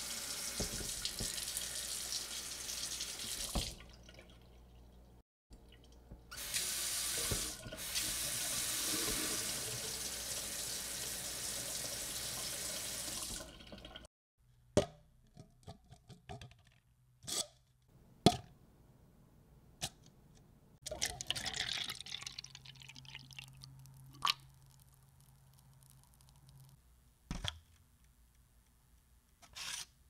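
Kitchen tap running into a sink, once for a few seconds and again for about eight seconds, followed by a series of separate knocks and clinks of kitchenware.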